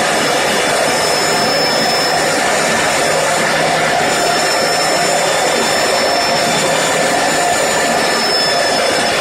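Electric diamond core drilling machine running steadily as it cuts into concrete, a continuous motor whine with several steady high tones over the grinding noise.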